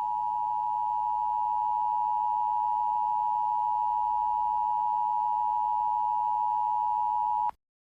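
Emergency Alert System attention signal: a steady two-tone electronic beep, held for about seven and a half seconds and cutting off abruptly near the end, marking the start of a new emergency message.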